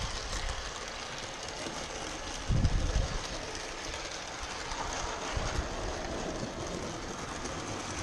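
Large-scale model train running on a garden railway track, its wheels clattering over the rails with a steady hiss. A brief low rumble about two and a half seconds in.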